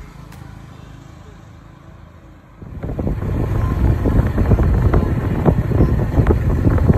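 Quiet outdoor background, then about three seconds in, a sudden loud rumble: wind buffeting the microphone and vehicle road noise while riding in a moving vehicle on a dirt road.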